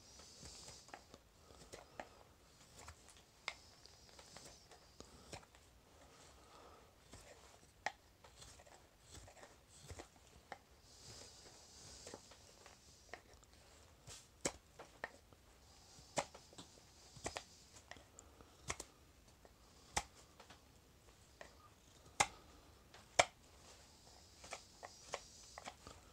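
Carving knife paring thin shavings off a green-wood spoon's neck to taper it into the handle: faint hissing scrapes as the blade slices, with irregular sharp little clicks and cracks as cuts finish and shavings break off.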